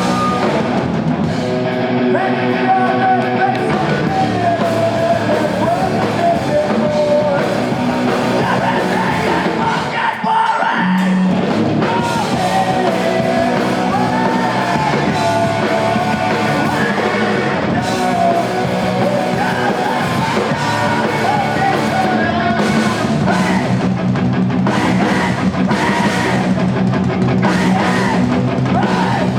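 A rock band playing live, with a singer's voice over loud guitar and drums; the band briefly drops out about ten seconds in before coming back in.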